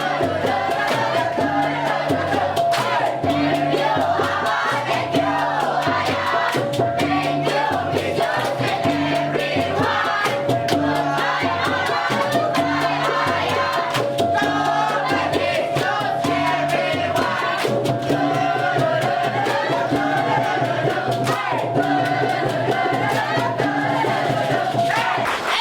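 Dikir barat chorus: many voices singing and chanting together over music with a low bass pattern that repeats about once a second.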